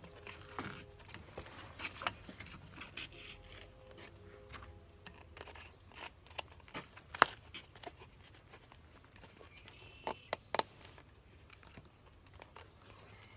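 Plastic soda bottle and line being handled: scattered light clicks and crinkles, with two sharper clicks about seven and ten seconds in.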